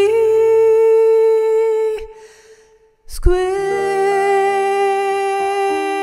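A singer holds the long final note of a jazz ballad, which stops about two seconds in. After a second's pause an electric piano strikes a sustained closing chord, with further notes added beneath it.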